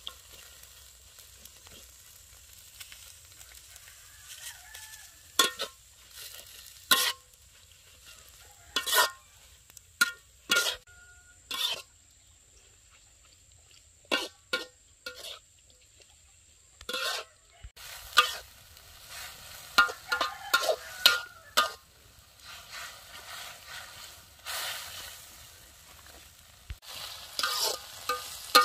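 Metal spatula scraping and clanking against a metal wok while stir-frying water spinach, with a faint sizzle. The strokes come irregularly, a few at a time, and grow busier after the middle.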